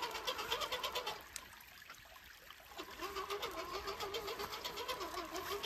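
Electric motor and gearbox of an RC 6x6 rock-crawler truck whining, the pitch wavering as it labours over rocks, with a fast ticking over it. It stops for about a second and a half near the middle, then starts again.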